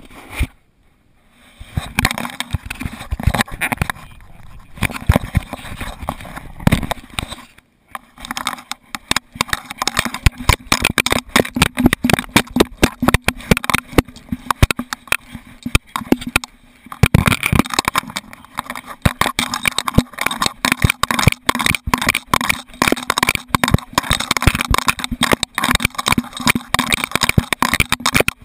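Jostling noise from a GoPro camera strapped to a running, playing dog: a dense run of knocks, rattles and rubbing against the mount, with a brief lull about a second in.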